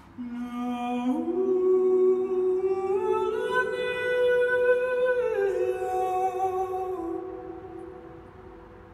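A man's wordless improvised singing: one continuous line of held notes that climbs in steps over the first few seconds, holds at the top for about two seconds, then drops back down and fades out.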